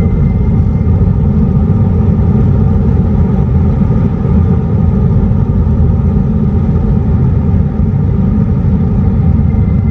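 Hyundai IONIQ 5's vehicle approach warning sound (VESS) and driving noise, recorded from inside the front trunk: a steady low rumble with faint steady tones above it.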